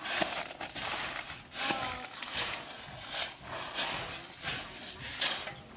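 Long-handled hoe scraping and shoving granular fertilizer across a plastic tarp. It makes repeated gritty, hissing strokes, roughly two a second.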